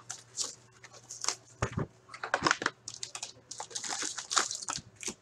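Hands opening a cardboard box of hockey card packs and handling the packs: irregular rustling, tapping and scraping of cardboard and wrappers, with many short clicks.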